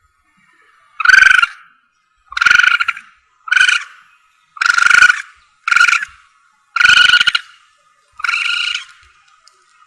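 Palm civet (musang) lure calls: seven loud, harsh, raspy calls, each about half a second to a second long, repeated roughly once a second.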